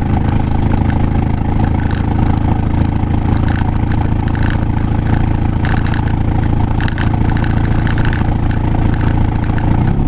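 Vehicle engine running at a steady speed with road noise, heard from inside the cabin while driving, with a few light clicks.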